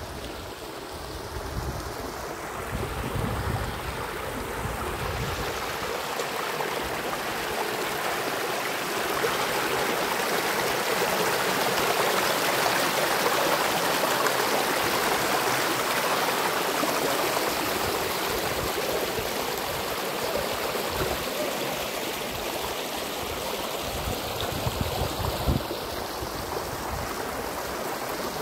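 Shallow rocky stream rushing and splashing over stones in a steady hiss, growing louder in the middle as the water runs close by.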